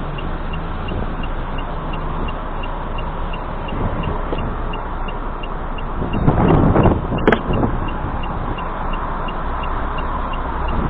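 Car driving, with a steady rush of road and engine noise inside the cabin and a faint regular ticking about three times a second. The noise swells for a second or so about six seconds in, with a sharp click at its end.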